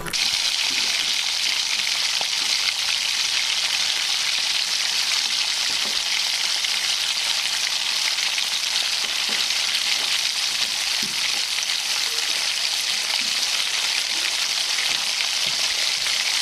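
Food frying in hot oil in a pan: a steady, dense sizzle and crackle.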